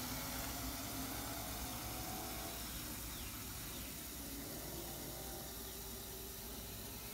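Water from a garden hose wand running into a plastic watering can as it fills, a steady hiss.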